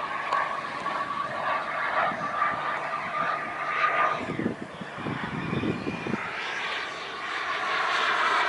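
Skymaster T-38 Talon RC model jet in flight, its engine giving a steady high whine. Low rumbles of wind on the microphone come in around the middle.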